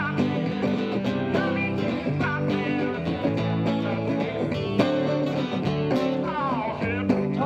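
Small live band playing: strummed acoustic guitar and electric guitar through small amplifiers, with a voice singing.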